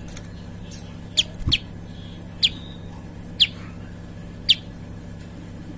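Prinia (prenjak) calling: five sharp chips that slide downward in pitch, about one a second, over a steady low hum.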